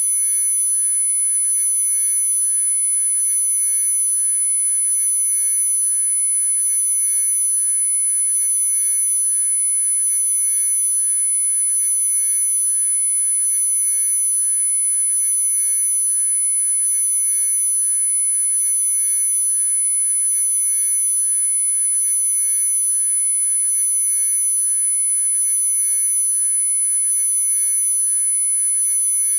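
Electronically generated sine-wave tones: several pure, unwavering pitches sounding together at a constant level, the strongest a very high-pitched whine.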